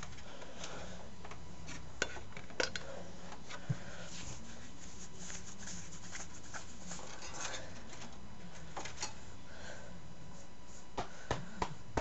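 Scattered small clicks and light scraping as fan cables and plastic connectors are handled and routed inside an open metal computer case, a few sharp clicks early on and three more near the end.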